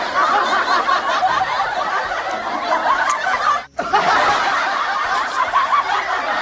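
Snickering, chuckling laughter that runs on without pause, broken by a sudden brief dropout about three and a half seconds in.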